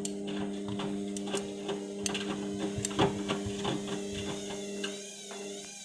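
Indesit washing machine running with an unbalanced load: a steady motor hum with irregular knocks and rattles from the drum, and about five seconds in a higher whine joins that rises and falls in a steady wobble.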